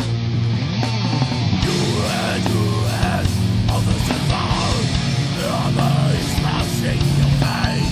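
Heavy metal song: electric guitars playing over sustained low notes, with drums striking steadily throughout.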